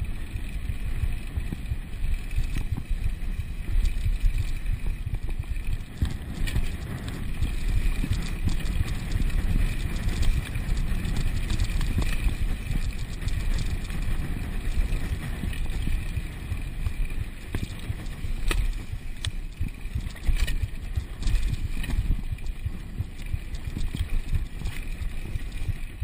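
Downhill mountain bike descending a rough dirt trail, heard from a camera worn by the rider. Wind buffets the microphone over a steady rumble of tyres and suspension on the ground, with scattered rattles and knocks from the bike.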